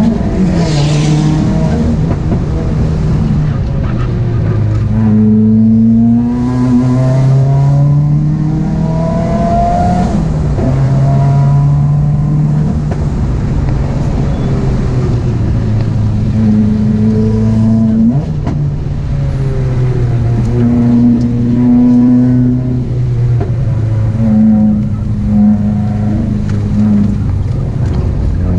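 A modified 2018 Subaru WRX's turbocharged flat-four engine, with a catless J-pipe and a custom 3-inch exhaust, driven hard through a timed run. The engine pitch climbs under acceleration and drops back repeatedly as it shifts and lifts off.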